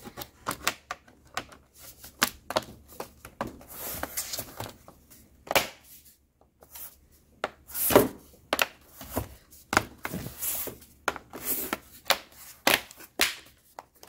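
Bottom cover of a ThinkPad T460 laptop being pressed back on by hand, its edge tabs snapping into place in an irregular run of small clicks and taps. The loudest snaps come about eight and ten seconds in.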